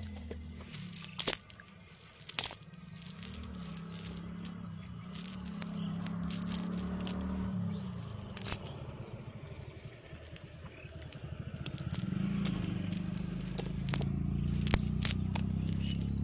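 Fishing net rustling and scraping as hands work through it on wet sand to pick out the catch, with scattered sharp clicks and crackles. A low hum runs underneath and grows louder near the end.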